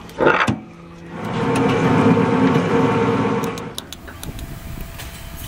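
Rubber-moulding press in a workshop: a short clatter as the metal mould plates are handled, then the machine's motor hums steadily for about two and a half seconds and fades. A few light clicks follow near the end.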